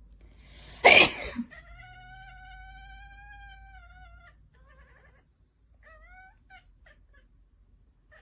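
A woman sneezes loudly about a second in, and a cat answers the sneeze with one long, drawn-out meow, followed by a few short meows.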